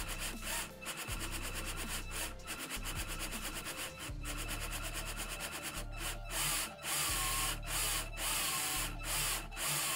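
Four LEGO Mindstorms Robot Inventor motors running together, a whirring motor-and-gear buzz with a low hum that cuts out and restarts several times as the motors stop and start.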